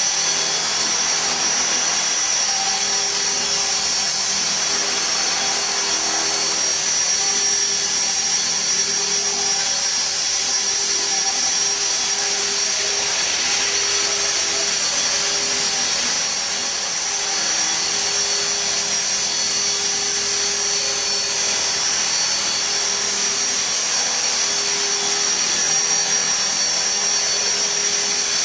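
E-Sky Belt-CP electric RC helicopter in flight: a steady high-pitched motor whine with rotor buzz, holding an even pitch throughout, with a slight dip in loudness about halfway through.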